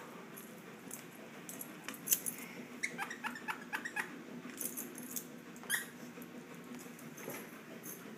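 A Shih Tzu playing roughly with its toys: a quick run of short squeaks and clicks through the middle of the stretch.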